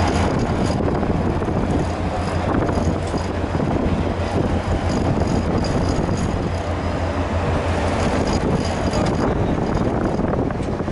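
Outboard boat motors running at low speed, a steady low drone.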